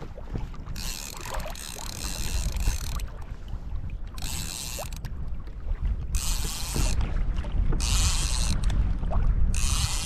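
Fishing reel being cranked in five separate bursts of about a second or two each, its gears running with a ratcheting hiss. Steady wind and water noise underneath.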